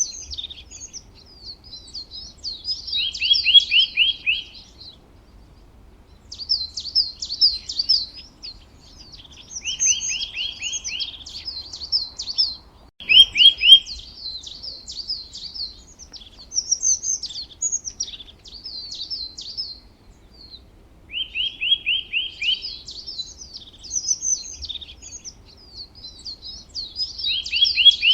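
A songbird singing the same kind of phrase over and over, a new one every few seconds. Each phrase is a quick jumble of high chirps and a fast trill of repeated, slightly lower notes. A single faint click comes about halfway through.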